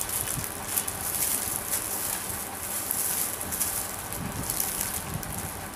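Rustling and crackling from clothes being handled, irregular and high-pitched.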